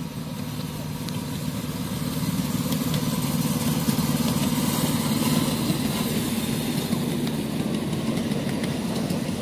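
Engine of a miniature railway locomotive in Santa Fe diesel livery running steadily as it hauls a train of passenger cars past. The hum grows louder as the locomotive draws level, about three to five seconds in, then eases a little.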